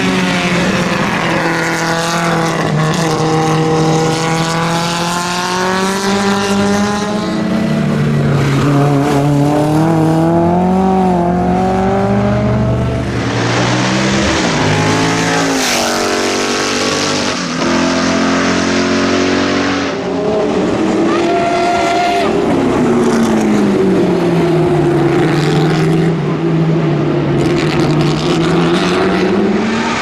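Racing car engines at full song on track, revving up through the gears and dropping on downshifts and braking, in several short clips of different cars. A close, loud pass sits in the middle. Near the end one engine note falls and then climbs steadily again.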